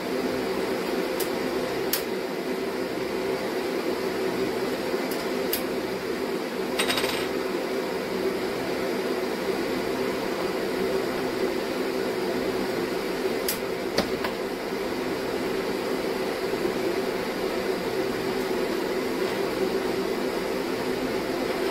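Steady mechanical hum under about half a dozen sharp clicks and snips of hand wire cutters working on thin wires, with a short scratchy rustle about seven seconds in.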